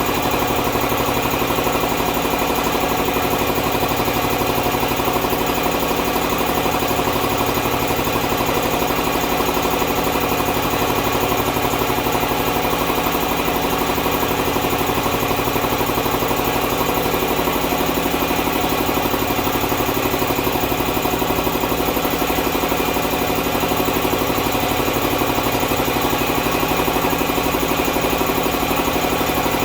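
Champion piston air compressor running steadily on three-phase power, pumping up its tank, with a fast, even chugging of the pump over a constant hum.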